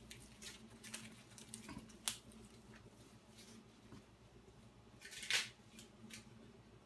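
Scattered faint clicks and rustles from ingredients being handled and added, with one louder rustle about five seconds in.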